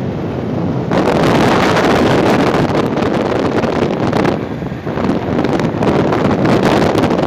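Wind rushing over the microphone of a moving motorcycle, with road noise beneath; it eases briefly a little past the middle.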